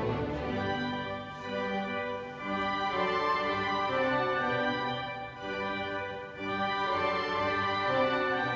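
Symphony orchestra playing classical music, strings to the fore, in long held notes and chords.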